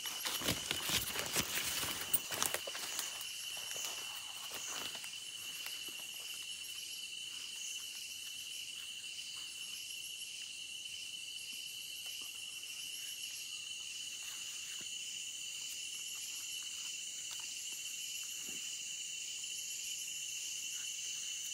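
Insects chirring steadily, a constant high-pitched tone with a faster pulsing trill above it. For the first two or three seconds, footsteps crunch and rustle through dry leaf litter.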